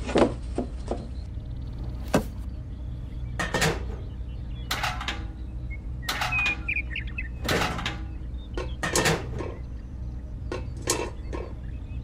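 Irregular small clicks, taps and scrapes of hands handling miniature model parts: a plastic block set down on a tray and a small spoon scooping sand in a little metal bucket, over a low steady hum.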